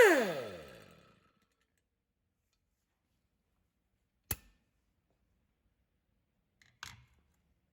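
Nitto Kohki MAG-70 air angle grinder spinning down as it is shut off, its whine falling in pitch and dying away within about a second. Then come two short sharp clicks, about four and seven seconds in.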